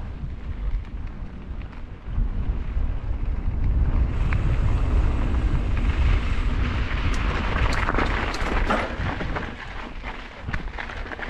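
Wind buffeting the microphone with a low rumble, joined about four seconds in by rustling with a cluster of crackles near the middle.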